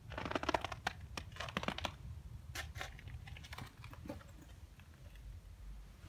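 Footsteps crunching and scraping over rubble and broken debris on a concrete floor: irregular crunches, heaviest in the first couple of seconds, thinning out by about four seconds in.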